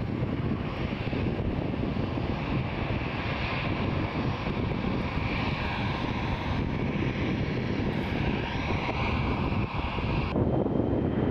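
Jet airliner engines running, a steady rumble with a whine above it. About ten seconds in the whine cuts off abruptly, leaving a louder, uneven low rumble.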